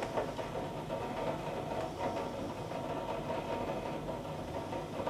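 Steady rumbling noise of a thunderstorm over a city, with faint scattered ticks and no distinct thunderclap.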